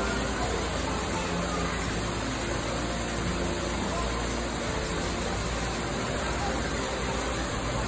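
Steady rushing of a small waterfall splashing into a pool, with faint, indistinct voices underneath.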